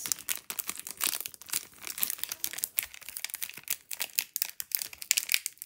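Foil trading-card pack wrapper crinkling and crackling in irregular bursts as hands work at it to open it.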